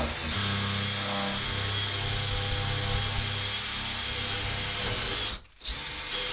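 Cordless drill running steadily as it bores into the edge of a wooden door for the latch. It stops suddenly about five seconds in, then starts again briefly.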